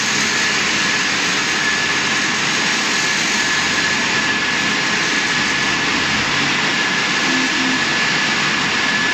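Golden Boat T12 touchless car wash machine running through its cycle: a steady rushing hiss with a thin, steady high whine over it.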